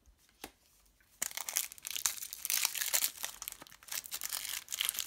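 Foil wrapper of a Match Attax trading-card booster pack crinkling as it is handled and torn open, starting about a second in after a couple of faint taps.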